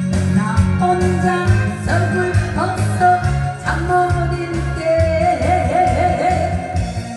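A woman singing into a microphone over a loud backing track with a steady beat, amplified through a PA; near the end she holds one long note.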